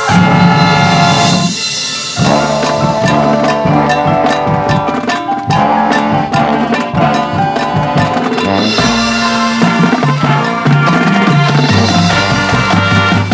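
High school marching band playing its field show: a few seconds of held chords, then a drum-heavy passage of rapid strokes over pitched notes, with sustained band chords returning about two-thirds of the way through.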